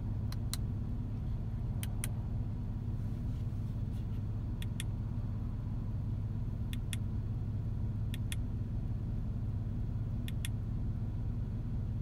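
Buttons on a Porsche 991 multifunction steering wheel clicking as they are pressed and released, six quick double clicks spaced irregularly, over a steady low hum inside the car's cabin.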